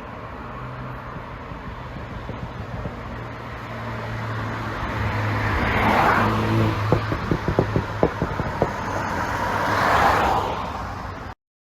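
BMW G29 Z4 20i's tuned 2.0-litre turbo four-cylinder exhaust, getting louder to a peak, then a quick string of sharp crackles and pops on the overrun: the pop-and-crackle sound of a tuned ECU. It swells again near the end and then cuts off abruptly.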